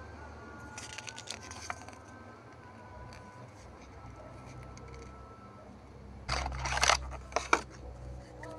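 Handling sounds of a card instruction leaflet and a small hollow plastic toy: a few light clicks of card early on, then, about six seconds in, a loud scraping rustle and two sharp plastic clicks as the toy is picked up and turned in the hands.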